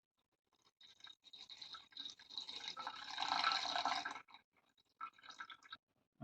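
Water being poured into a cooking pot: a thin trickle about a second in that builds to a fuller, splashing pour and stops about four seconds in, followed by a few short splashes.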